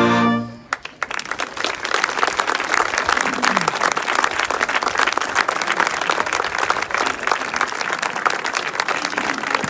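The final held chord of a brass band march cuts off about half a second in, then audience applause starts and continues steadily.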